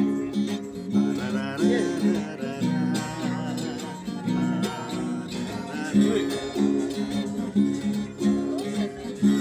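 Small acoustic guitar strummed by hand in a steady chord rhythm, with a man's voice carrying a melody over it in places.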